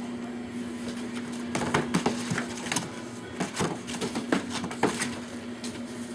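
German shepherd puppies and a cat play-fighting: scuffling, with many quick scratches of claws and small knocks, busiest in the middle, over a steady low hum.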